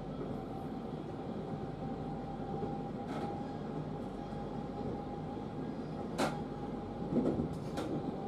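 JR Kyushu 811 series electric train running, heard from just behind the cab: a steady rumble with a faint steady whine. A few sharp clicks cut through it, the loudest about six seconds in and a quick cluster near the end.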